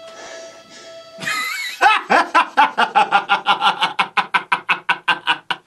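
Quiet music, then about a second in a man lets out a loud cry that breaks into long, rapid laughter, about six ha's a second.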